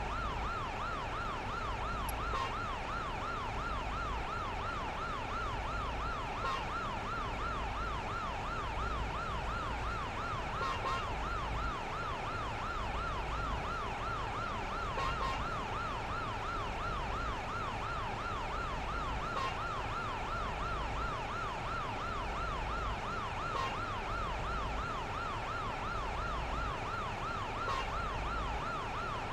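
Electronic siren sounding a fast, even up-and-down warble without a break, with a faint tick about every four seconds.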